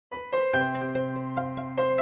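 An Honor Magic 7 Lite ringtone starting just after a moment of silence: a soft electric-piano melody over held bass notes, a new note coming in about every half second.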